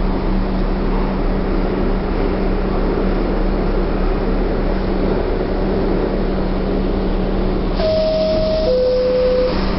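R62A subway train running through the tunnel: a loud, even rumble with a constant low hum. About eight seconds in, a two-note falling tone sounds, a higher note and then a lower one.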